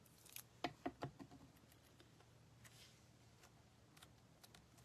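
Mostly near silence, with a few light clicks and taps in the first second or so as small papercrafting pieces and supplies are handled on a craft desk.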